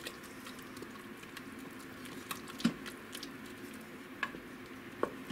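Wooden spoon stirring softened vegetables in an Instant Pot's stainless steel inner pot: soft squishing and scraping with scattered light clicks against the pot. A steady low hum underneath.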